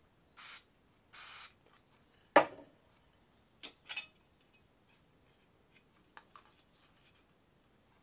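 Krylon aerosol spray paint can giving two short hisses about half a second apart, spraying paint into its cap for brush touch-up. Then a single sharp knock, the loudest sound, followed by a couple of lighter clicks and faint ticks.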